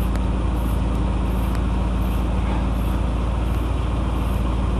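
Engine idling steadily, with faint short scraping strokes about every three-quarters of a second from a wire-toothed battery post cleaner being twisted on a battery post.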